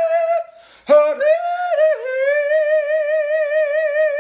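A man yodeling in a high falsetto: a held note, a quick breath about half a second in, then a run of quick pitch flips into a long note with a fast, even wobble.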